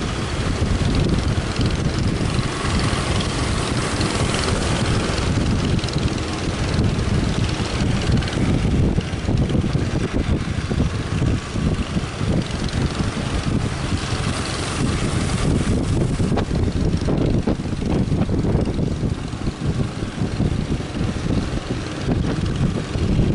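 Strong wind buffeting the microphone aboard a speedboat, over a steady engine-like drone and rushing water. The level is loud throughout, with a dense, fluttering rumble.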